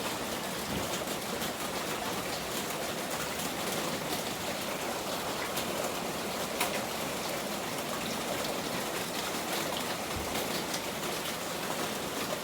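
Steady heavy rain falling, with scattered sharper drop ticks on hard surfaces.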